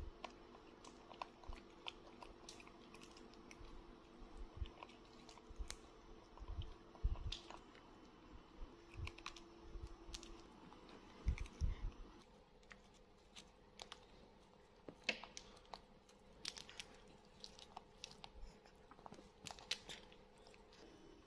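Monkeys cracking open peanut shells and chewing: a scatter of faint, sharp cracks and clicks, with a few dull thumps.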